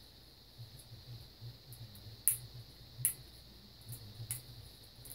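Hand-handling noise at the neck of a whiskey bottle: soft rustling and about four sharp clicks as the seal is worked off the cap, over a steady high hiss.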